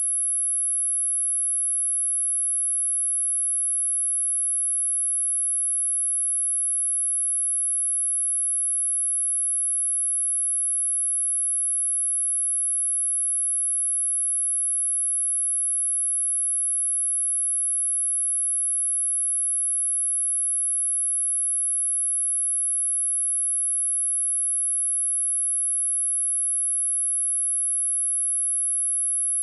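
A steady, unbroken 10914 Hz sine tone at a constant level: a single high-pitched test tone, the kind played to check a speaker or shake water and dust out of it.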